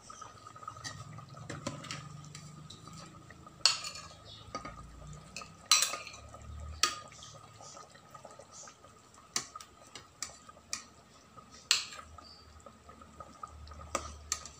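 Metal ladle scooping chicken curry out of an aluminium rice-cooker pot into a bowl, clinking sharply against the pot several times, with soft sloshing of the sauce.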